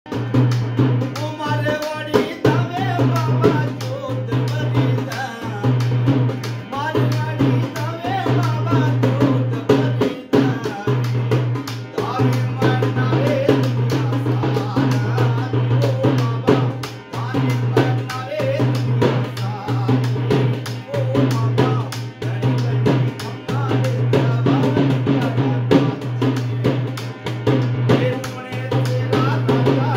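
Live folk music: a NAGI harmonium holds a steady low note under its melody while a man sings, over quick, dense hand strokes on a rope-laced dhol drum.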